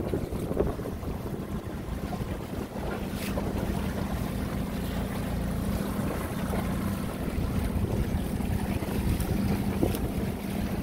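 Small motorboat under way on choppy water: a steady engine hum under wind buffeting the microphone and water splashing against the hull.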